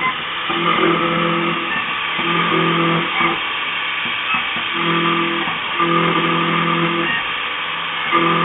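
Milling cutter cutting steel on an adaptive toolpath. A steady pitched tone comes and goes about five times at uneven intervals as the cutter moves into and out of the cut, over a constant machine hiss.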